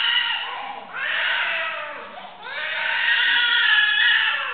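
Infant crying hard: three long, high wails, each rising and falling in pitch, with short gasps for breath between them.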